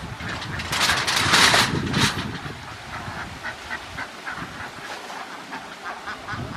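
Flock of domestic ducks on a pond. A loud rushing noise comes about a second in, then many ducks give short quacks in quick succession.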